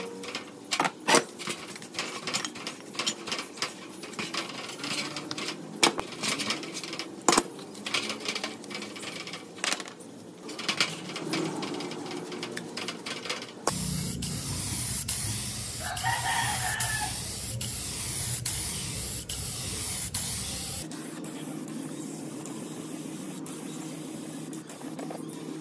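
A paintbrush scrubbing old air-compressor parts in a metal tray of cleaning liquid, with sharp clicks of the metal parts knocking on the tray. About halfway through, this gives way to the loud, steady hiss of a paint spray gun spraying, during which a rooster crows once in the background. Near the end the hiss drops to a quieter, steady level.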